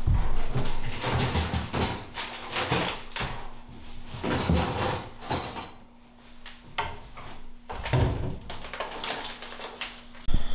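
Kitchen cabinet doors and drawers opening and shutting while things are put away, a string of irregular knocks and clatters with a sharper thump near the end.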